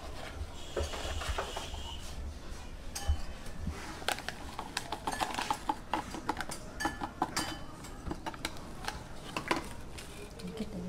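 Metal kitchen utensils clinking and knocking against dishes and pans in a quick, irregular series of sharp clinks.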